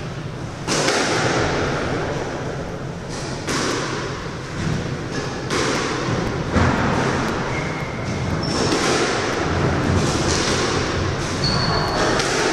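Thuds of a squash ball and rackets at the end of a rally, with short squeaks of shoes on the wooden court floor.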